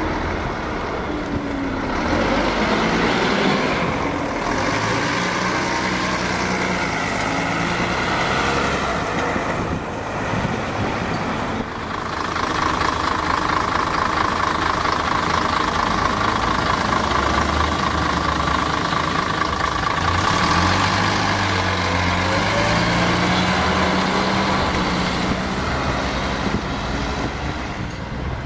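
Single-deck diesel buses pulling away and driving past close by, their engines running and rising in pitch as they accelerate. A steady high whine from one bus runs for several seconds in the middle.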